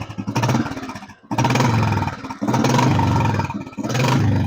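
Old Royal Enfield Bullet 350's single-cylinder four-stroke engine thumping as the throttle is blipped four times, each surge about a second long and dropping back briefly between them.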